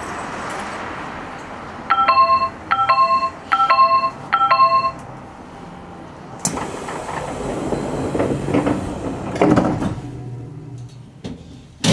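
Electronic door chime of a 7020 series commuter train sounding four times in quick succession. It is followed by a sudden hiss of compressed air and a thump as the doors work at the station stop.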